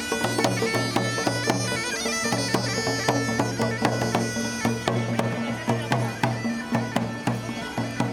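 Bagpipe music: a tune played over a steady drone, with an even drumbeat underneath.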